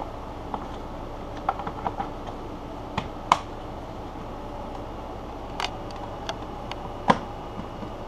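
Irregular plastic clicks and snaps as an engine-bay plastic cover and wiring clips are pressed back into place over the oil filter housing, the sharpest about three seconds in and near the end, over a steady background hum.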